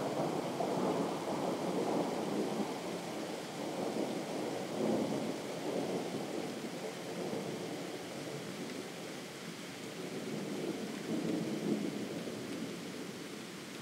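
Distant thunder rumbling in long, rolling swells that rise and ebb several times, growing weaker toward the end.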